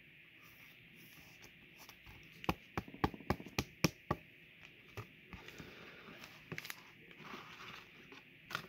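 Trading cards and a clear plastic card holder being handled on a tabletop: a quick run of sharp plastic clicks and taps about two and a half seconds in, then lighter scattered ticks and light handling rustle.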